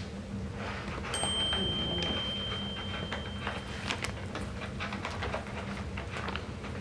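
Coton de Tulear puppies moving about their pen: a busy run of small clicks, taps and rustles. A steady, high, beep-like tone starts about a second in and stops about three seconds later.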